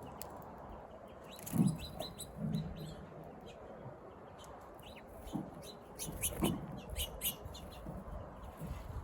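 Birds calling: short high chirps scattered throughout, with a few short low sounds about one and a half, two and a half, five and a half and six and a half seconds in.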